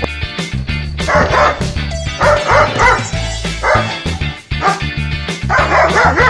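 A dog barking in quick runs of barks, loudest near the end, over background music with a steady beat.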